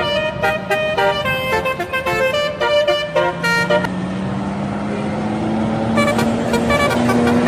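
Indonesian intercity bus telolet horn playing a quick, tuneful run of stepped notes, which stops about four seconds in. A low engine note rises slowly in pitch from about three seconds on, and the horn melody starts again near the end.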